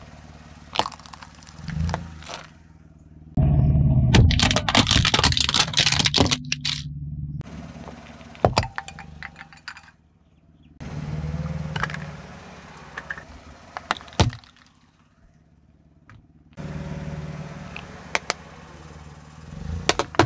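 A car's tyre rolling slowly onto small objects and crushing them, over the low running of the car's engine, in several short takes. Sharp cracks and crunches come as things break under the tyre, with the loudest run of crunching a few seconds in.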